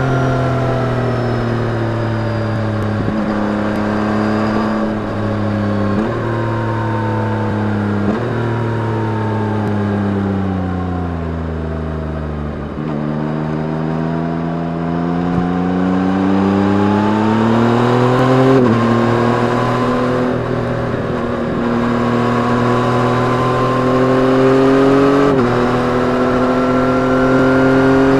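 2021 Yamaha MT-09's 890 cc three-cylinder engine through its stock exhaust, under way. The engine note sinks as the bike slows to its lowest about twelve seconds in. It then climbs again under throttle, with two upshifts where the pitch drops suddenly before rising once more.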